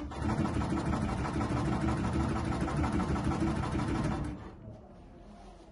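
ALDKitchen electric milk tea shaker (120 W, double stainless-steel frame) running, its motor swinging the cup frames back and forth. The sound starts at once, runs steadily for about four seconds, then winds down and stops.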